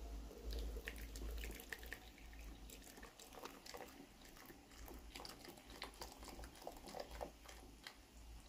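Hot water poured in a thin stream from a stainless steel kettle into a ceramic mug, faintly trickling and splashing with irregular small drips and ticks, over a faint low rumble.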